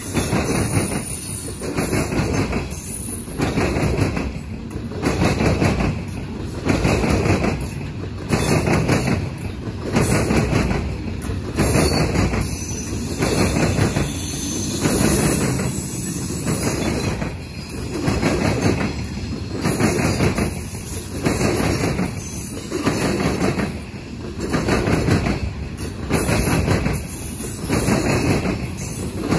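Loaded coal cars of a slow freight train rolling past, steel wheels clacking over the rail joints. The sound swells and fades about every one and a half to two seconds as each car's wheel sets go by.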